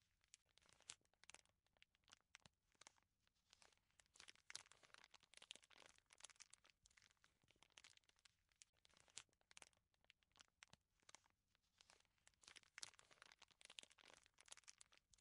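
Faint crinkling and rustling of a thin plastic bag as minced chicken mixture is packed into it with a utensil, in many short irregular crackles.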